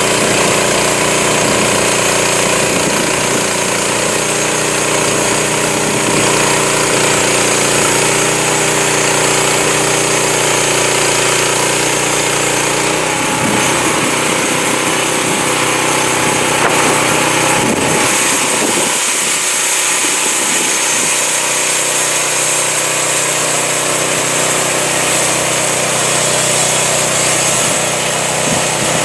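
Home-built Crosswood Model #28 band sawmill running under power, its engine running steadily while the band blade cuts through a honey mesquite log, with a steady high hiss from the cut. The engine's note shifts about halfway through.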